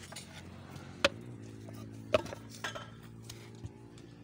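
Hands slapping and kneading a lump of wet brick clay, with sharp slaps about one and two seconds in, over a steady low hum.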